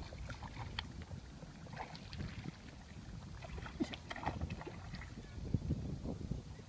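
Water sloshing and splashing in short, irregular strokes over a low rumble of wind on the microphone.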